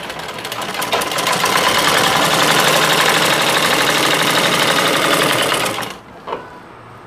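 Domestic sewing machine stitching an elastic waistband, fabric stretched as it feeds: it picks up speed over the first couple of seconds, runs at a steady fast stitch, then stops abruptly about six seconds in, with a single click just after.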